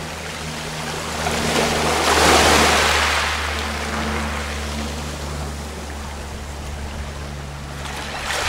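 Low steady electronic drone tones from wave-sensing sound-art buoys that turn the sea's motion into sound, with the wash of small waves swelling about two seconds in.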